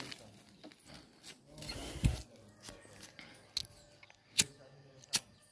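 Sharp, irregular clicks and knocks, roughly one a second, with a duller, louder knock about two seconds in: the rattle of riding a bicycle over a rough, patched road.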